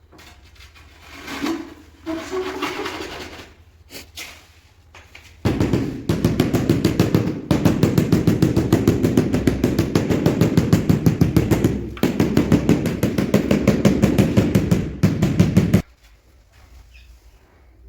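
A power tool running with a rapid, even rattle of strokes for about ten seconds, after two or three brief starts, then cutting off suddenly.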